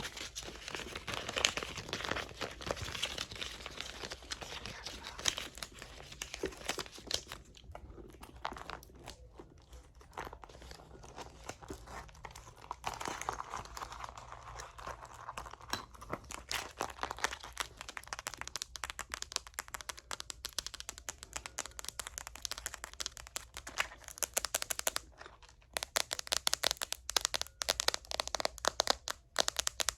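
Close-up tapping and handling of a Gucci leather handbag: many quick, crisp taps with rustling handling noise about halfway through, the taps growing louder and sharper near the end.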